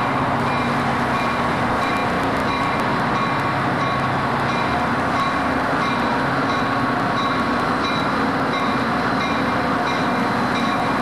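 Amtrak EMD F40PH diesel-electric locomotive, its 16-cylinder two-stroke engine running steadily as it pulls slowly into the station, with a faint high ping repeating about every two-thirds of a second.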